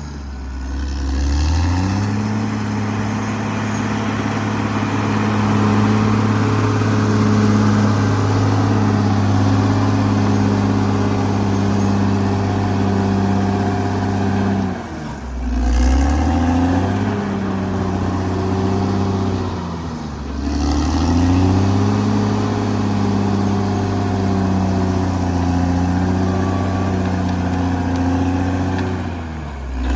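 Caterpillar D6R XL bulldozer's diesel engine running hard at high revs. The engine speed drops sharply three times, about halfway through, around two-thirds through and at the very end, and each time climbs quickly back up.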